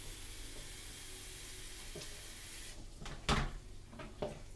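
A steady hiss that cuts off suddenly a little over halfway, followed by a few knocks of something being handled, the loudest about three seconds in.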